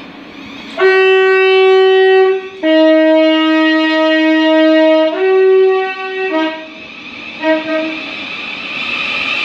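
Thameslink Class 700 electric train sounding its two-tone horn: a higher note for about a second and a half, a long lower note, then the higher note again, followed by two short blips. The train's running noise then rises near the end.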